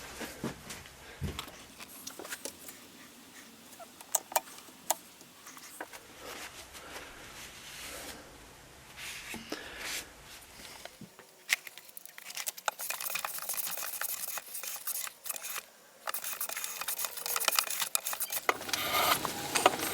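Scattered clicks and light taps of wood and tools being handled, then, from about twelve seconds in, a denser stretch of rubbing and scraping with small clicks that stops briefly near sixteen seconds.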